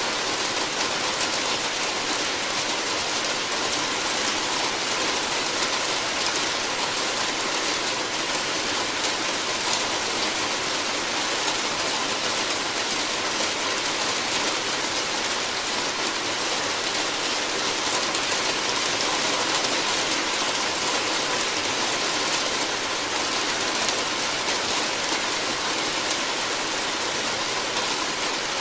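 Rain falling steadily on a roof: an even hiss that does not let up.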